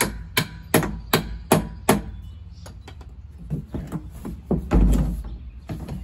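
Hammer striking the reused axle cap on the end of a wheel shaft, six sharp blows at about two and a half a second. Near the end a heavy thud as the plastic tote is laid down on the concrete.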